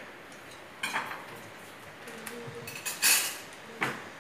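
Plates, bowls and serving spoons clinking on a table of food: a handful of separate sharp clinks, the loudest about three seconds in with a short ringing tail.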